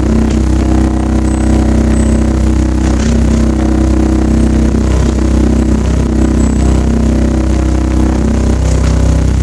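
Subwoofer playing a loud, steady low test tone of about 32 Hz, with the sub box rattling and buzzing along with it: a loose, vibrating part of the enclosure.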